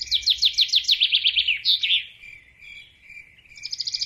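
A songbird singing a fast trill of downward-sweeping high notes that ends in a short flourish, then starting the same song again near the end, over a steady high-pitched tone.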